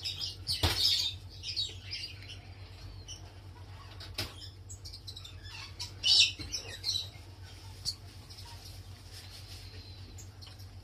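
Sand cat kittens mewing in high, squeaky chirps. One cluster of calls comes about half a second in and another about six seconds in, with a sharp click about four seconds in.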